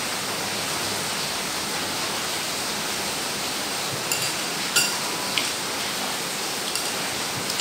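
Chopsticks and a spoon clinking against porcelain soup bowls, four or five light clinks with a short ring in the second half, one louder than the rest. Under them runs a steady hiss.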